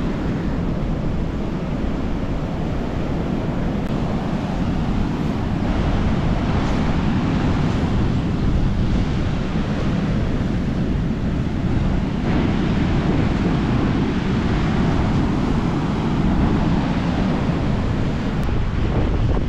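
Surf breaking and washing on the beach, a steady rushing with slow swells, mixed with wind rumbling on the microphone.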